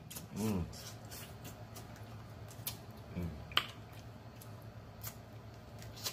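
Snow crab leg shells cracking and snapping at the mouth and between the fingers during eating, with wet mouth sounds; a sharp crack about three and a half seconds in is the loudest. A short hummed "mm" comes near the start.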